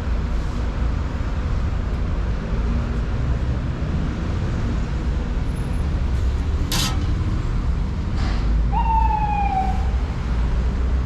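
Steady rumble of city road traffic, with a sharp knock about seven seconds in and a short whine falling in pitch near the end.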